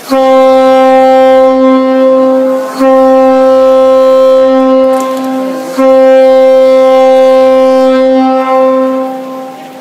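A ship's horn sounding three long blasts at one steady pitch, almost back to back, the last one fading out near the end.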